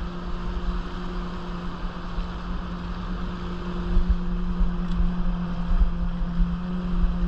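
Rushing river water over rapids, with wind buffeting the microphone in low gusts and a steady low hum underneath.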